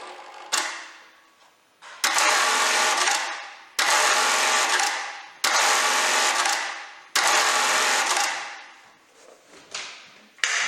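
Brother KE-430HS industrial bartack sewing machine running through short tacking cycles, about five in a row. Each starts abruptly and tapers off over a second or so. A few lighter clicks follow near the end.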